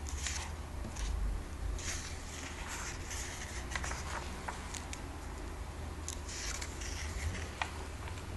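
Comic book pages being handled and turned by hand: paper rustling and swishing in a series of short bursts with a few crisp clicks, over a steady low hum.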